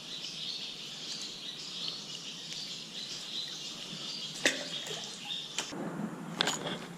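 Birds chirping steadily, with a few sharp clicks and knocks in the second half.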